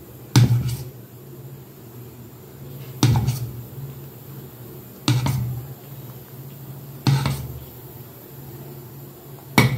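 A metal spoon clinks five times against metal cookware, about every two seconds, as idli batter is scooped from the pot into the idli plate's moulds. A steady low hum runs underneath.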